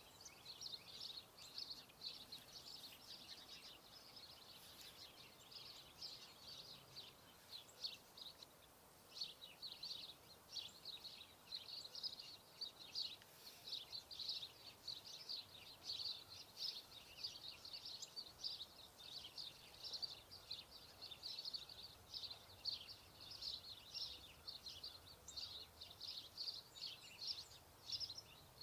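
Faint, busy high-pitched chirping of small birds over quiet outdoor ambience. The chirping thins out for a few seconds near the start, then grows dense again.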